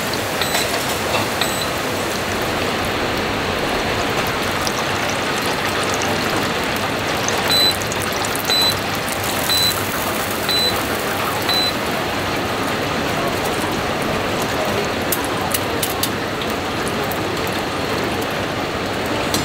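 Food frying in the oil of an automatic countertop deep fryer, a steady sizzling hiss. From about a third of the way in, the fryer beeps five times, a second apart, signalling the end of the frying cycle as its basket is raised out of the oil.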